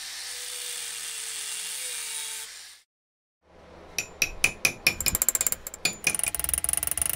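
An angle grinder with a thin cut-off disc runs with a steady hiss for about three seconds, cutting a small steel plate held in a vise. After a short gap, a hammer strikes the steel bracket in the vise to bend it over: sharp, ringing metal-on-metal blows that come faster and lighter near the end.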